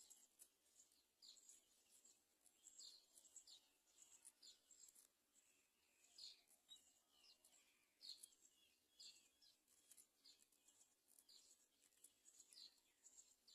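Faint, high-pitched bird chirps repeating one or two times a second over a soft background hiss.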